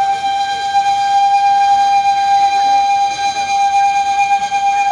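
Side-blown flute playing one long, steady held note.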